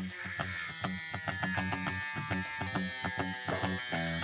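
Makita angle grinder's cut-off wheel running and cutting through a steel MGN12 linear rail, with a steady high whine over a hiss.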